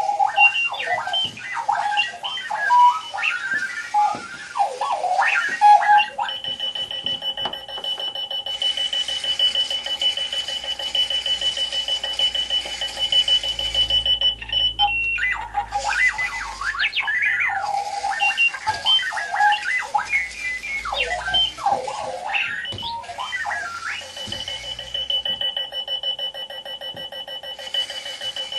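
Clocky robotic wheeled alarm clock's alarm going off, beeping in a random pattern. Warbling, jumping electronic chirps switch twice to a steady high electronic tone over a fast pulsing buzz.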